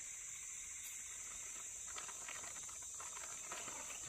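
Steady high-pitched insect chorus, with faint scuffling and rustling starting about halfway through.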